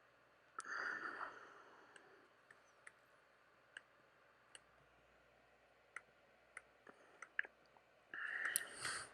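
Faint scattered clicks of LEGO plastic bricks being handled and pressed together, with a brief rustle of pieces being sorted about half a second in and again near the end.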